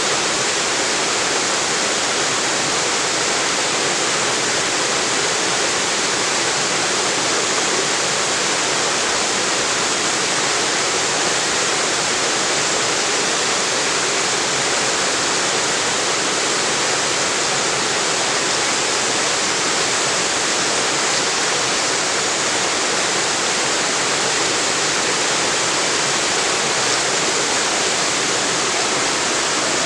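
Small waterfall on a river, water pouring and splashing over rocks in a steady, even rush.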